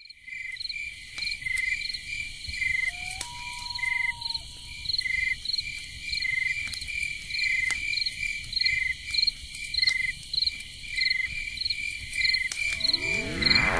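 Cricket-like chirping at two steady high pitches, about three pulses a second, with a short gliding whistle about three seconds in. Near the end a dense sweeping synth tone sets in.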